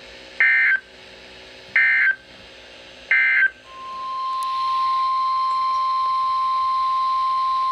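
Three short squawks of an Emergency Alert System SAME data header, about a third of a second each and roughly 1.3 s apart, then the steady single-pitch NOAA Weather Radio alert tone that swells up over about a second and holds. Together they open a new weather alert broadcast.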